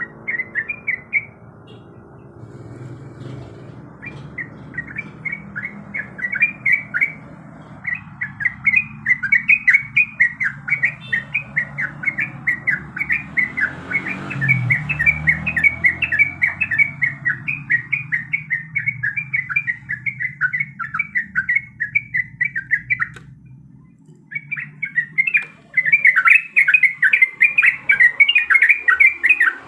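Sooty-headed bulbul (trucuk) singing a long rolling run of quick, repeated chattering notes, breaking off for about two seconds past the twenty-second mark, then resuming louder. A faint low hum runs underneath.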